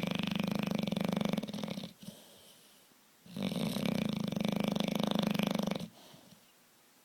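Bulldog snoring in long, even snores of about two and a half seconds each: one ends about two seconds in, then a quiet breath, and another runs from about three to six seconds in.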